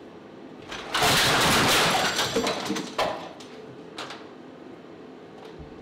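A person falling off a stepladder and crashing into a freezer piled with sharp, pokey objects: a loud crash and clatter about a second in, lasting about two seconds, then two sharp knocks a second apart.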